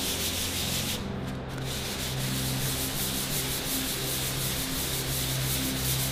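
Hand sanding with 180-grit paper on a small sanding block over a primed fibreglass panel: a continuous rasping of quick, repeated strokes, with a brief let-up about a second in. It is flattening a thin skim of stopper filler on a flat area ready for primer.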